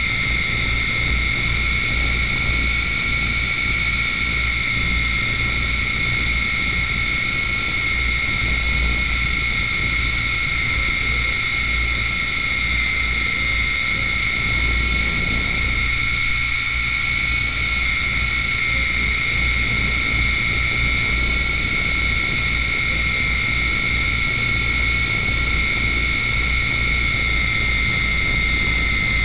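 A steady high-pitched whine over a low electrical hum, unchanging throughout.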